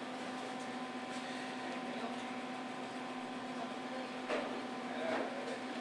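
Steady electrical hum of commercial kitchen equipment, with a couple of brief soft noises about four and five seconds in.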